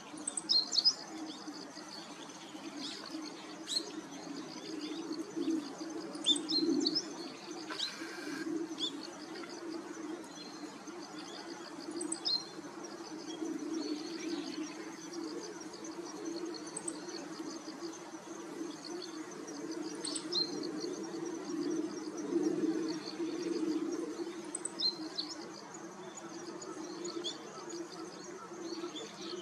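Meadow bunting singing: short bursts of high, clear notes every few seconds over a steady low drone.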